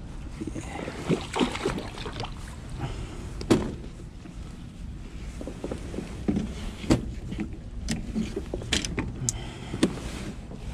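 Handling noises in a plastic kayak: rustling and irregular knocks and clicks as a freshly landed tautog is handled in the angler's lap.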